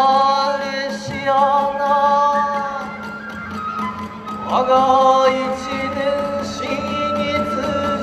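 Kagura hayashi music: a voice sings long, held kagura-song phrases that slide up into each note, over a steady high flute note. Sharp percussion strikes keep a quick, even beat, about five or six a second.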